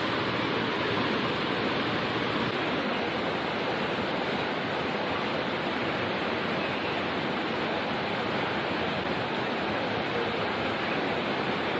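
Shallow rocky river rushing steadily over boulders and small rapids.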